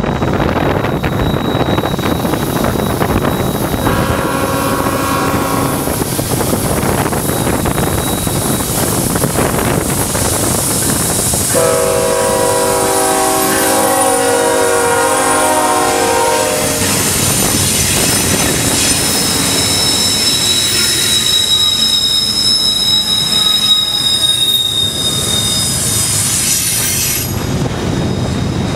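BNSF diesel-hauled double-stack intermodal train rolling past, its locomotive horn sounding a short blast about four seconds in and a longer blast from about twelve to seventeen seconds. After that the stack cars rumble by with high-pitched wheel squeal on the curve, and wind noise throughout.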